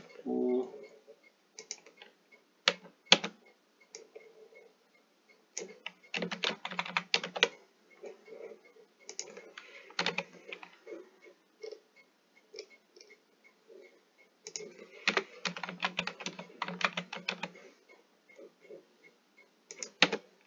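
Computer keyboard being typed on in short bursts, with pauses and single key presses between them. There is a quick flurry about six seconds in and a longer run about fifteen seconds in.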